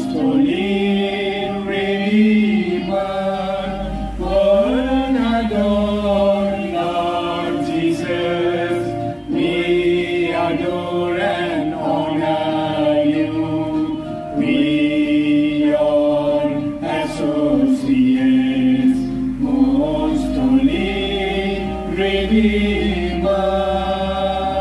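A small group of voices singing a devotional hymn together, with a Roland electronic keyboard accompanying them in long held chords.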